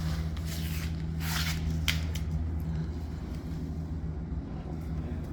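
Steady low machine hum with a few brief rustles and a single sharp click from handling nearby.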